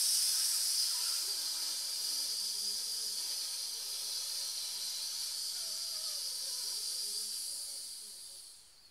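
A man letting out a long, steady 'sss' hiss through his teeth on one breath, the 'kettle' breathing exercise for singers: a slow, controlled release of air. It starts suddenly, holds for about eight seconds and tails off near the end.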